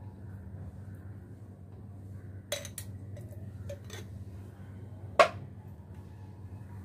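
Metal spoon clinking against a ceramic plate and chutney jar: a few light clinks, then one sharper, louder clink about five seconds in.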